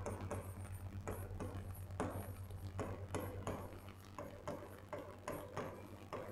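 Chalk writing on a blackboard: a string of short, irregular taps and scratchy strokes, about two or three a second, as letters are written, over a faint steady electrical hum.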